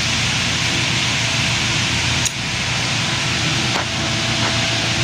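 Dodge Charger engine running steadily after a timing-chain repair, a low even rumble under a strong steady hiss, with a brief click a little over two seconds in.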